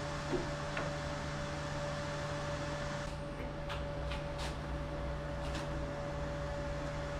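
MIG welder laying several short tack welds on a steel frame, heard as brief sharp bursts between about three and five and a half seconds in, over a steady machine hum.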